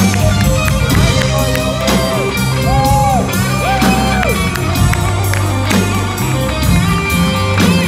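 Live band playing: a lead electric guitar bends notes up, holds them and lets them fall, over electric bass, drum kit and keyboard.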